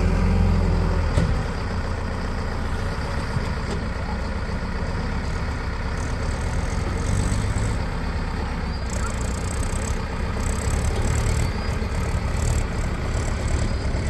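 Backhoe loaders' diesel engines running steadily while the machines work, with a few short knocks or clanks over the engine noise.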